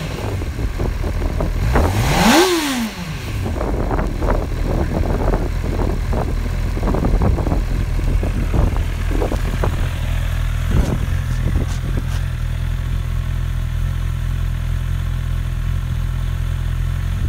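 2018 Honda CB1000R's inline-four engine in neutral, blipped once about two seconds in, its pitch rising and falling straight back, then idling steadily. A few light clicks come around eleven to twelve seconds in.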